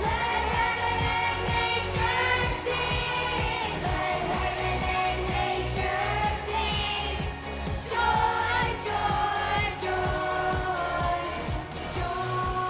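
A song with a sung melody over pop-style accompaniment and a steady beat.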